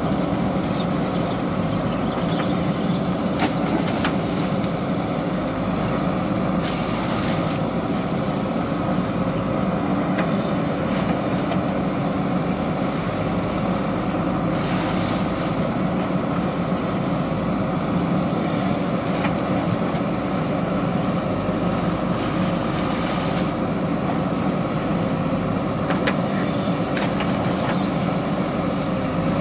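JCB 3DX backhoe loader's four-cylinder diesel engine running steadily under load while the backhoe digs wet soil. A brief rush of noise comes every seven or eight seconds, with a few short knocks between.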